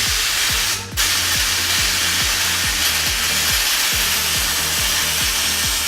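Can of compressed air spraying a steady loud hiss onto a metal fidget spinner, with a short break about a second in. Background music with a regular deep beat plays underneath.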